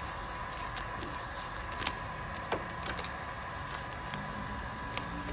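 Handheld electric heat gun blowing steadily, its fan motor giving a constant whine, with a few sharp ticks and crackles as the baked, brittle vinyl wrap is peeled from the car panel.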